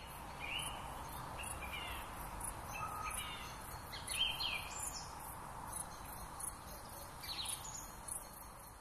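Birds chirping in short, repeated calls that slide in pitch, over a steady outdoor hiss, with a faint high ticking about twice a second.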